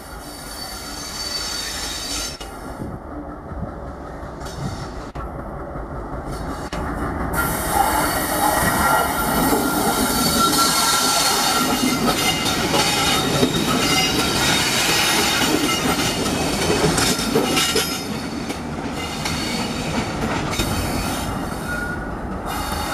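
Several ALCO-type diesel-electric locomotives coupled together and running without a train pass close by. Their engines and wheels build up over the first several seconds, are loudest for the middle stretch as the units go by, and ease off near the end. A steady high whine runs through the loudest part.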